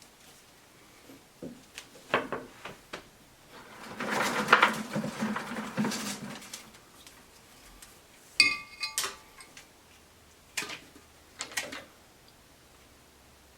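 Fresh dogwood twigs being bent and wrapped around a twig ring by hand: scattered clicks and snaps, a stretch of dense rustling about four seconds in, and a brief squeak about halfway through.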